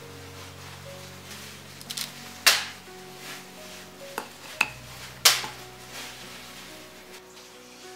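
Dishes and kitchen utensils being handled: about five sharp knocks and clinks, the loudest two about two and a half and five seconds in, one followed by a short ring.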